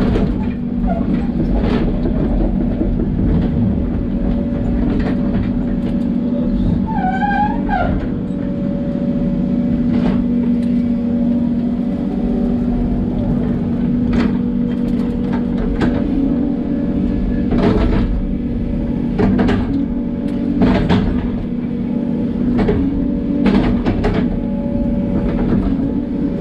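Hidromek 140LC tracked excavator working: its diesel engine running steadily under hydraulic load, with scattered knocks and clanks from the bucket and arm as it digs and moves soil. A brief wavering squeal about seven seconds in.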